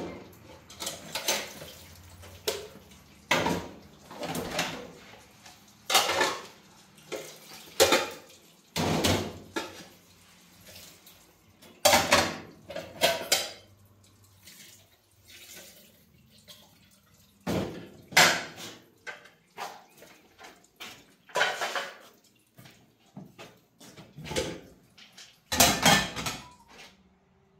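Pots, pans and dishes clattering: irregular knocks and scrapes, some ringing briefly, with short gaps between them.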